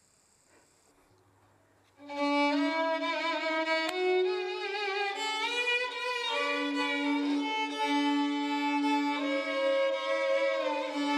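Near silence for about two seconds, then violin music starts: a melody played over a held low note.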